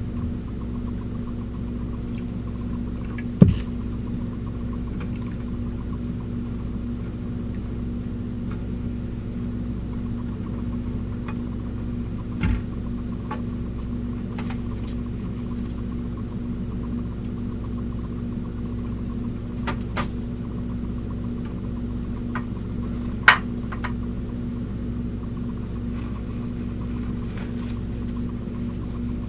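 A steady low hum, with a few sharp clicks and knocks of kitchenware being handled; the loudest knocks come about three seconds in and again a little before the end.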